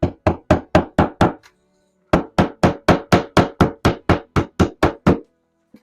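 Hammer tapping a hammer-in drywall anchor into drywall: quick, even blows about four a second. A short run of strikes, a brief pause, then a longer run of about a dozen blows.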